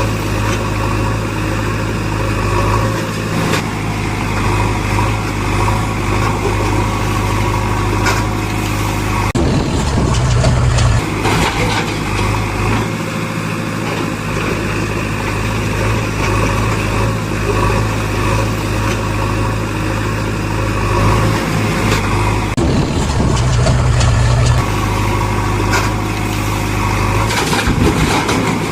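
Backhoe loader engine running steadily with a low hum; its sound shifts for a couple of seconds about ten seconds in, and again a little past twenty seconds.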